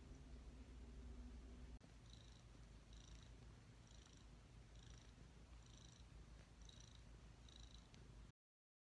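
Domestic cat purring while it kneads a blanket: a quiet, steady purr that pulses a little more than once a second. It starts about two seconds in and cuts off abruptly near the end.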